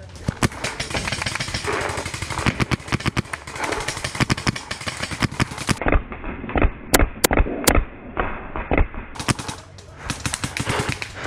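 Paintball markers firing rapid strings of shots, with the player's own Planet Eclipse Gtek marker firing close by while other markers fire around it. For about three seconds in the middle the sound turns duller.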